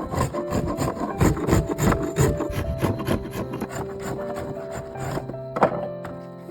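Wood being scraped or rasped by hand in quick repeated strokes, about three or four a second, thinning out after about three seconds, with one sharp knock past the five-second mark. Soft background music with sustained notes underneath.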